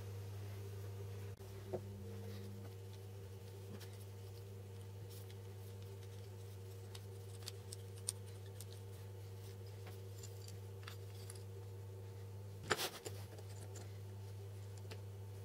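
Light clicks and taps of small wooden and metal parts being handled and fitted together on a homemade drill bit sharpening jig, with one louder knock about 13 seconds in, over a steady low hum.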